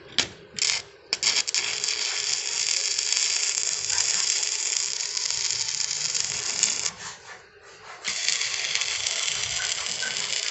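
Electric arc welding crackling and sizzling. A few short arc strikes come in the first second, then a steady weld runs for about five seconds. After a brief break the arc is struck again about eight seconds in and held.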